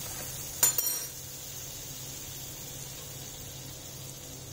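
Butter melting in a hot kadai with the gas off, giving a faint steady sizzle that slowly dies away. A couple of sharp clinks come about a second in.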